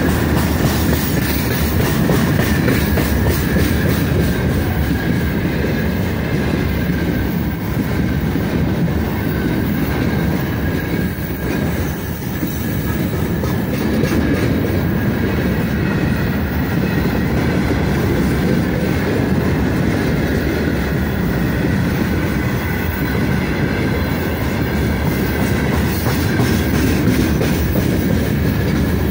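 Freight train of open gondola wagons rolling past close by: a steady rumble of steel wheels with the clickety-clack of wheelsets over the rail joints, and a thin, steady high wheel squeal over it.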